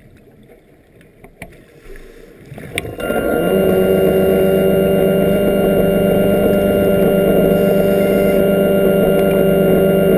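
Underwater scooter (diver propulsion vehicle) motor, heard underwater through the scooter-mounted camera's housing: after a few faint clicks it starts about three seconds in and runs as a loud, steady whining drone at one even pitch.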